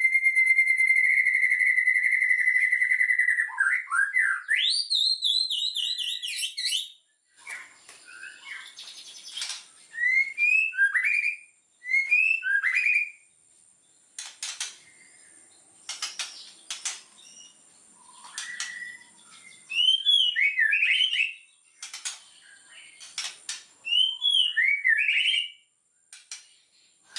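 White-rumped shama (murai batu) in vigorous song: a long, steady whistled note, then rising notes breaking into a fast warble, followed by short phrases of upswept whistles separated by pauses, with sharp clicks among them.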